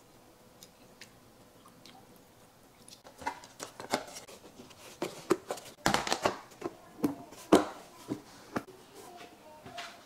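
Snap-on plastic lids being pressed down onto glass Pyrex mixing bowls: starting about three seconds in, a run of sharp clicks and snaps as the lid rims seat on the glass.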